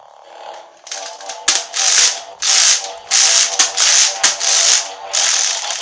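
Toy spinning lightsaber being spun by hand: its spin mechanism makes a rattling, ratchet-like clicking in repeated loud bursts, about two a second, over the toy's steady electronic hum.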